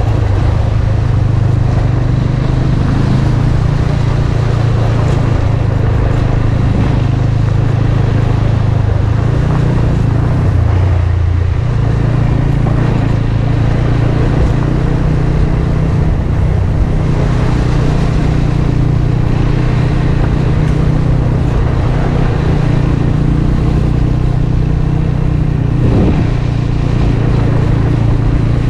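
Motorcycle engine running steadily while riding on the road, with a rushing noise over it; the engine note shifts about 11 seconds in.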